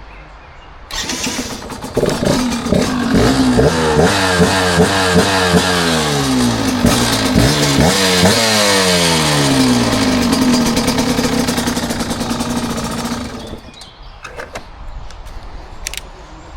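Yamaha DT 125 R two-stroke single, fitted with an Athena 125cc cylinder and Athena exhaust, accelerating hard through several gears: its pitch climbs and drops back at each shift. It then gives a long falling note as it eases off and fades.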